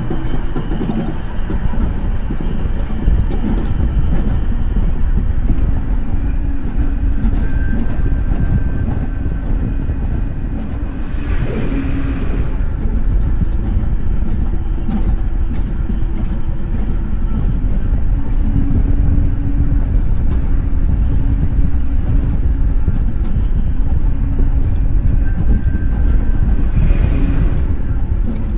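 Wiegand coaster kart rolling along its steel rail track, heard from on board: a continuous low rumble from the wheels with a faint steady hum over it. Two brief hissing swells rise and fade, one about twelve seconds in and one near the end.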